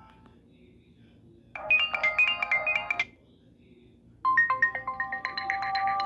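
Nokia N97 Mini ringtones playing on a Nokia 130 phone: a short electronic melody of quick notes lasting about a second and a half, then after a pause of just over a second another melody begins.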